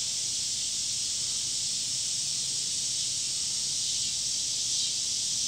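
Steady high-pitched hiss with a faint low hum underneath, unchanging throughout; no distinct events.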